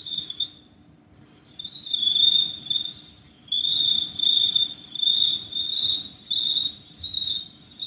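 A man imitating a cricket's song with his mouth: a high, thin trilling chirp. A short burst comes at the start and a longer one about two seconds in, then a run of repeated chirps.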